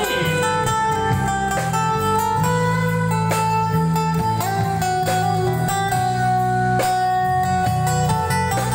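Live band playing an instrumental passage: guitar carrying sustained lead notes over bass and drums.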